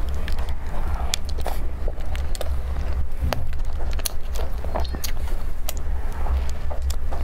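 Close-miked tearing and biting of a soft filled bun: many small crackly clicks as the crumb is pulled apart, then a bite and chewing near the end, over a steady low rumble.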